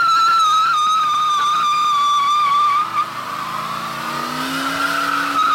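Rear tyres of a Ford F-150 Flareside pickup spinning in a brake stand, giving one long, steady, high squeal. The engine's pitch rises underneath in the second half.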